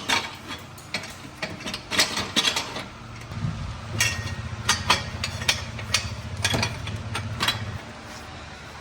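Metal clinks and knocks as a steel exhaust header pipe is worked through an ATV's frame. A low steady hum runs through the middle few seconds.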